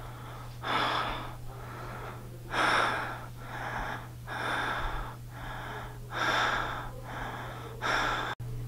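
A person breathing heavily close to the microphone, a loud breath in or out about every second, over a steady low hum.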